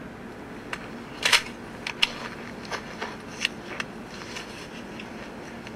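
A string of about eight irregular sharp clicks and knocks, the loudest a double knock a little over a second in, over a steady low hum.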